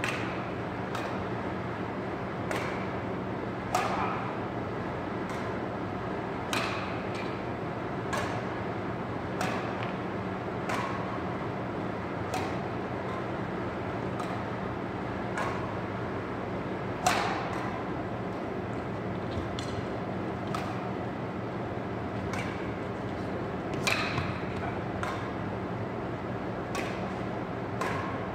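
Badminton racquets hitting a shuttlecock back and forth in a rally, a sharp hit about every one to one and a half seconds, ringing in a large gym hall over a steady hum.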